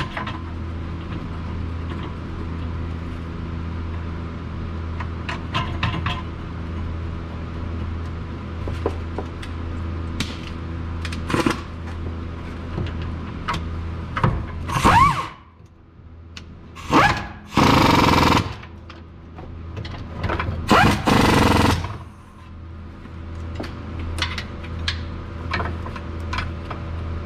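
Pneumatic wrench on an air hose running in short bursts, three times in the second half, the longest about a second, as it drives the rear brake caliper bolts home. Light clinks of tool and metal parts, over a steady low hum.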